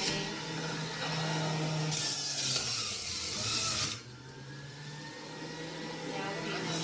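Electric juicer's motor running with a steady hum. For about two seconds in the middle it turns to a loud grinding as celery stalks pushed down the feed chute are shredded, and it eases at about four seconds in.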